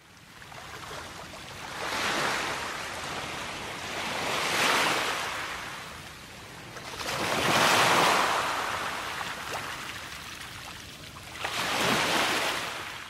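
Waves breaking and washing in: a rushing noise that swells and fades about four times.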